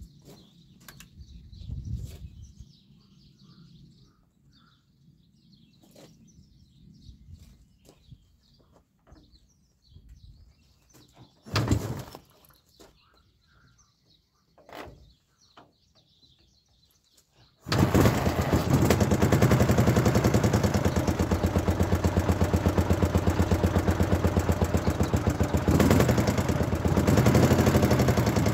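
Faint bird chirps and a few scattered clicks and knocks. Then, a little past halfway, a vintage sidecar motorcycle's engine cuts in abruptly and loud, running with a fast, even beat.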